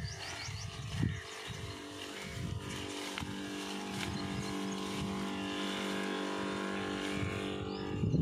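Small electric pump of a battery-powered knapsack sprayer running with a steady hum while it sprays.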